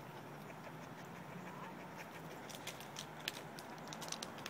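A dog panting faintly, then from about halfway through a quick run of small clicks and scratches as its paws and claws scrabble over dry wood chips and onto the bark of a tree trunk.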